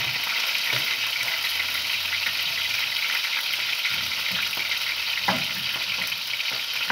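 Sliced tomatoes frying in oil in a pan, a steady sizzle, with a few faint clicks from a knife cutting an onion.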